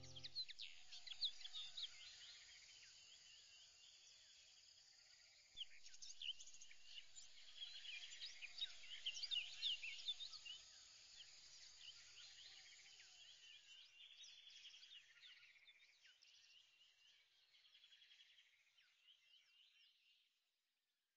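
Faint birdsong: many quick, high chirps in a dense chorus, thinning out and fading away near the end.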